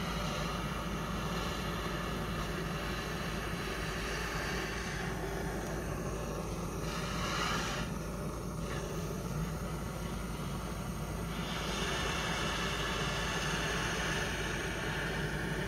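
Handheld gas torch flame burning with a steady hissing roar. The high hiss thins for several seconds in the middle and comes back strong about twelve seconds in.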